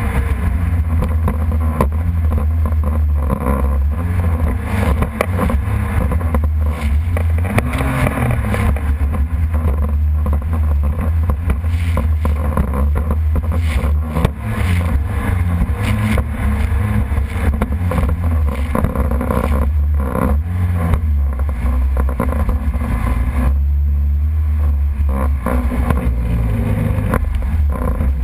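Jet ski engine running steadily, under a loud, heavy low rumble.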